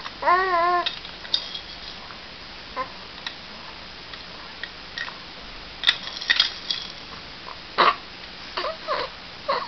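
A baby gives a short coo about half a second in, then plastic link rings and hanging toys on a bouncer's toy bar clack and click irregularly as the baby grabs and pulls at them.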